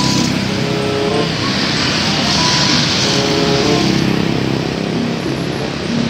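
Road traffic with motorcycles passing close by. Their engine and tyre noise swells and fades as each one goes past.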